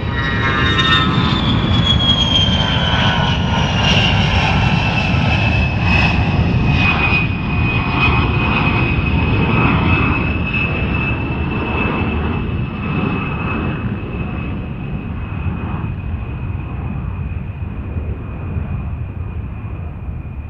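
Jet aircraft engine noise: a loud rumble under a high whine that falls in pitch over the first several seconds, then holds steady while the sound slowly fades.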